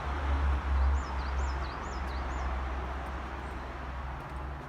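A small bird calling four quick, high, swooping chirps about a second in, over a continuous low rumble and hiss.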